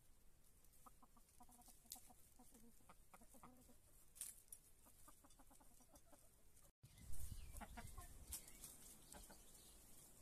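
Domestic chickens clucking softly: a long run of short, low clucks. Near the middle the sound cuts out briefly, followed by a short low rumble and a few more clucks.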